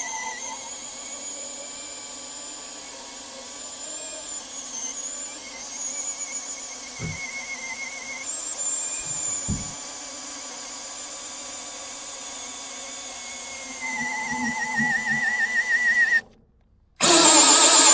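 Electric drill running a hole saw, its motor whine steady but wavering in pitch under load, with a couple of dull knocks in the middle. It cuts out briefly near the end, then starts again louder.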